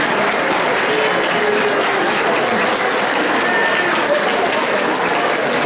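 Audience applauding steadily, with a few voices calling out in the crowd.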